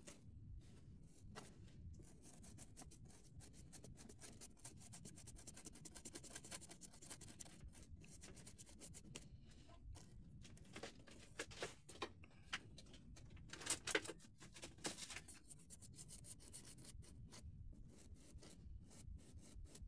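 Faint, quick scratching of a slightly damp flat paintbrush's bristles stroked back and forth over chalk-dusted card, blending the pastel powders into the stone joints. A few louder strokes come about two-thirds of the way through.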